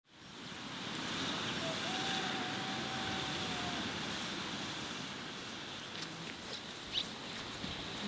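Rainy outdoor ambience: a steady rushing hiss of wind, rain and running water that fades in at the start. A faint thin tone is held for about two seconds early on, and a few soft ticks come near the end.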